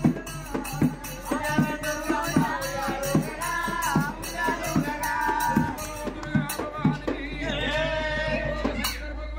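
Man singing a folk devotional song into a microphone, starting about a second in, over a steady hand-drum beat with jingling percussion.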